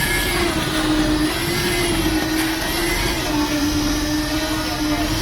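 A motor-driven machine running steadily, with a constant droning hum that wavers slightly in pitch over a rough noise.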